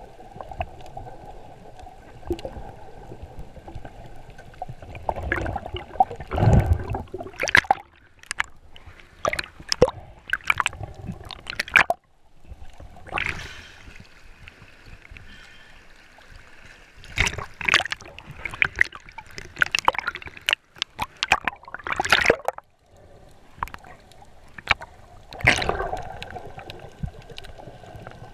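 Muffled underwater water sounds picked up by a GoPro in its waterproof housing, broken several times by loud, irregular bursts of splashing and bubbling as the swimmer moves through the water and breaks the surface.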